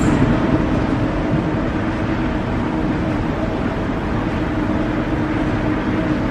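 Moving walkway running: a steady mechanical drone with a constant low hum.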